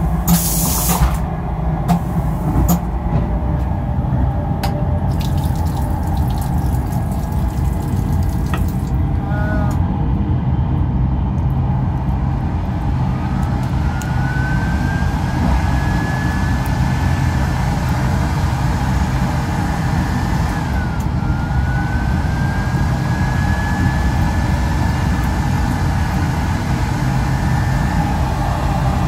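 Steady low rumble of the moving train, with a brief loud rush right at the start. About halfway through, a washroom hand dryer's motor starts with a rising whine and runs at a steady pitch, cuts out, then winds up again and runs until near the end.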